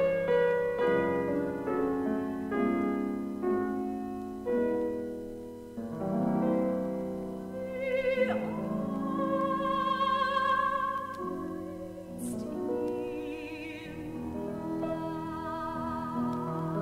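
Soprano singing a Romantic art song with piano accompaniment, from a vinyl record. Piano chords run throughout. About eight seconds in the voice slides up into a long note sung with a wide vibrato, and a shorter sung phrase follows a few seconds later.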